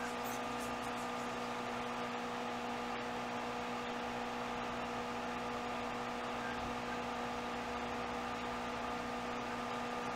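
Steady electrical hum with a few held tones over an even hiss, unchanging throughout: the background noise of the recording setup.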